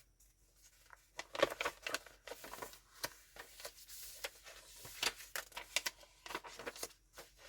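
Paper pages of a handmade junk journal being turned and handled: irregular rustling and crinkling with small flaps, starting about a second in.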